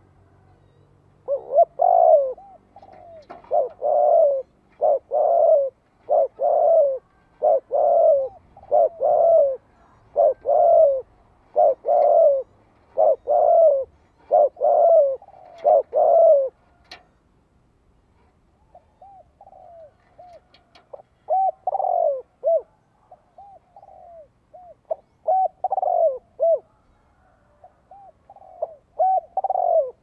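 Spotted dove cooing, a decoy bird's call to lure and provoke wild doves: a long run of loud coos about one a second, a pause of about two seconds, then softer coos building back into loud ones.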